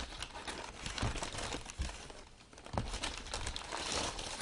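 Brown kraft packing paper crinkling and rustling as hands unwrap it, with a few light knocks about one, two and three seconds in.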